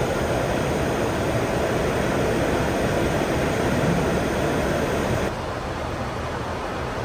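Steady rushing noise of air and engines heard inside a Boeing 747 cockpit during descent. The noise drops a little in level suddenly about five seconds in.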